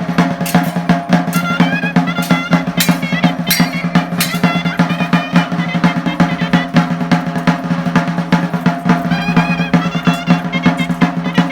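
Chirimía ensemble playing: fast, dense drumming with rolls runs under a wavering high melody from the chirimía, over a steady low drone.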